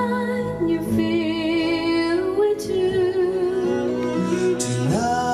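Music played back on a hi-fi system: a slow melody of long notes held with vibrato over low sustained notes. The melody slides up to a higher note near the end.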